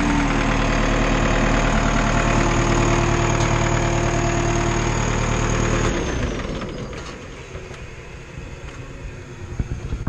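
Schwing WP-1000 trailer concrete pump running steadily, then shut off with the red stop button about six seconds in, its sound winding down and falling in pitch over about a second.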